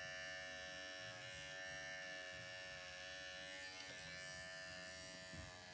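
Cordless electric pet clippers with a number 7 blade and a quarter-inch guard, running steadily at an even pitch as they clip a smooth fox terrier's throat and chest against the lie of the coat.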